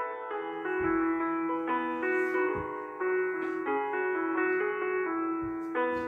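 Background piano music: soft, sustained keyboard chords with new notes coming in every second or so.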